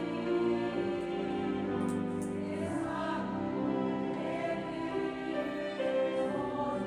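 Choir singing a slow passage in held, sustained notes, with grand piano accompaniment.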